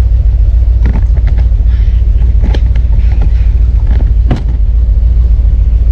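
1971 Corvette's V8 engine running with a steady deep rumble, with a few short knocks about one, two and a half and four seconds in.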